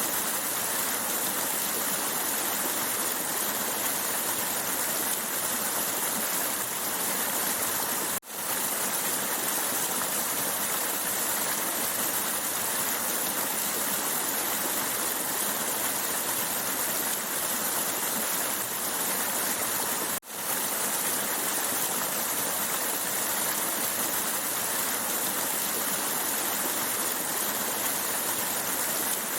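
Running water, a stream rushing in a steady, dense hiss. It drops out for an instant twice, about 8 and 20 seconds in.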